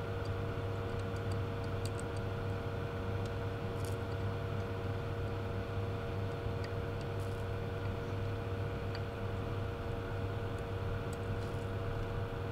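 Steady low hum from the electronics workbench, with a few faint small clicks here and there.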